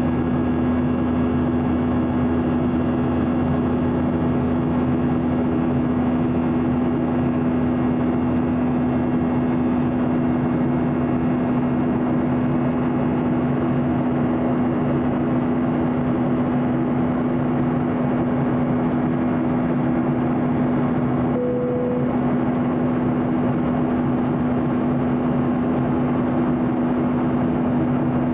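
Cabin noise of a Boeing 737-800 airliner in flight: a steady drone of its CFM56 turbofan engines and airflow with a constant low hum. A brief single beep sounds about three-quarters of the way through.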